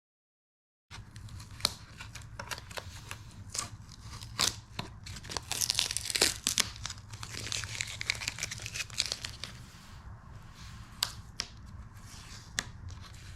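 Masking tape being peeled off a plastic wheel cover coated in still-soft Plasti Dip, crackling and ripping in a string of short pulls, loudest about five to seven seconds in. The tape is coming off unevenly, leaving jagged edges in the coating.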